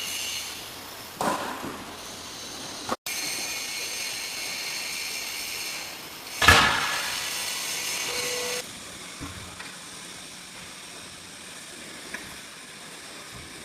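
Vertical baler running: a steady hiss with high whining tones from its hydraulic unit, a loud thump about six and a half seconds in, then quieter running after about eight and a half seconds.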